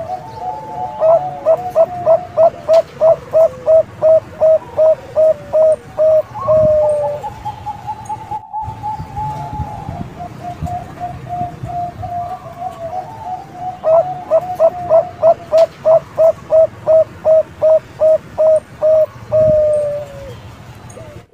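Young Bangkok-strain zebra dove cooing. It gives two bouts of rapid staccato coos, about three a second, each ending in one longer drawn-out note, with a softer, quicker run of coos between the bouts.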